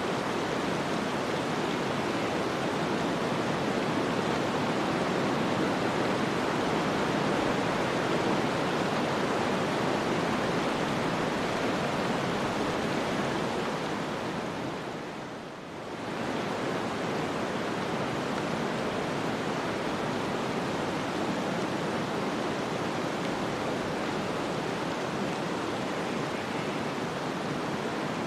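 Steady rushing snowstorm wind noise, dipping briefly in level about fifteen seconds in and then returning.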